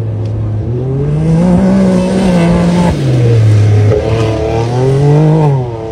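Side-by-side UTV rally buggy's engine revving hard, its pitch climbing and then falling twice as the buggy slides through loose sand.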